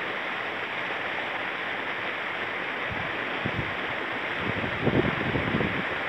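Steady rushing of water from a nearby cascade, an even hiss. A few low bumps come through in the second half.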